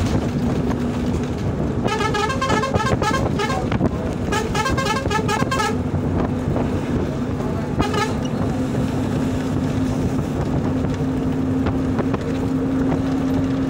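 Steady engine and road rumble heard from inside a moving road vehicle, with a horn sounding in two long, rapidly pulsing honks about two and four and a half seconds in, and a short toot near eight seconds.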